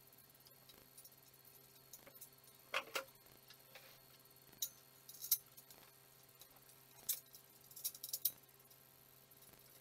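Scattered metal clicks and clinks of a wrench working bolts on a steel go-kart frame, about eight sharp ones at uneven intervals over a faint steady hum.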